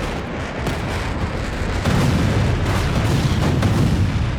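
Rumble of explosions from a bombardment, a dense booming din that swells louder about two seconds in.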